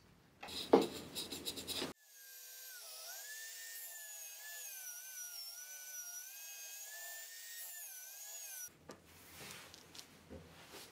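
Electric drill spinning a sanding disc, its motor whine wavering up and down in pitch as wood is pressed against the disc, lasting about seven seconds from about two seconds in. Before it come a few short clicks and knocks, and after it faint handling sounds.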